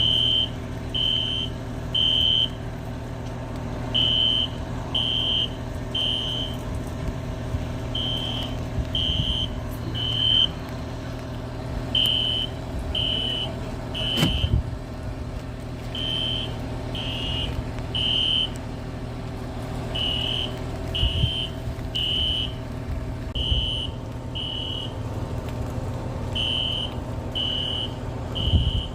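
Building fire alarm sounding in the three-beep evacuation pattern: three short high beeps, then a pause, repeating about every four seconds. It is a false alarm, set off by water dripping onto the main fire alarm panel. A steady low hum runs underneath.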